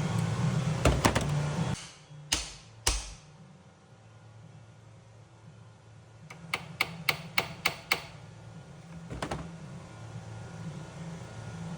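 Sharp metallic clicks and knocks of hand tools on the bolts of an engine's bottom mounting plate, including a quick run of about seven clicks, over a low steady hum that cuts off early on.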